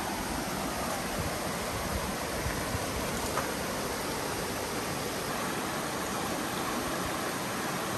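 Clear stream flowing: a steady, even rush of water.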